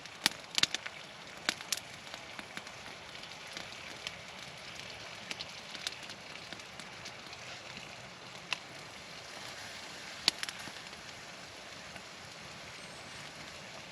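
Campfire crackling: sharp pops scattered over a steady hiss, several in the first two seconds and a loud one about ten seconds in.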